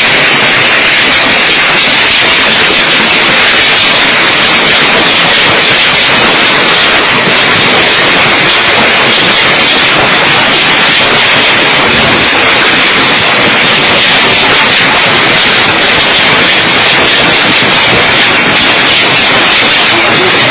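A violent storm: a loud, steady roar of wind and rain with no let-up.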